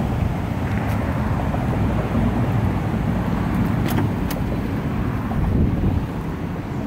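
Steady low vehicle rumble, with a few light clicks about one second and four seconds in.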